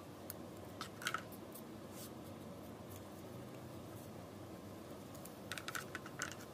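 Scissors snipping through folded paper, a few short crisp snips about a second in, then a quick run of light clicks and rustles near the end as the paper and scissors are handled on a cardboard tabletop, over a steady faint background hiss.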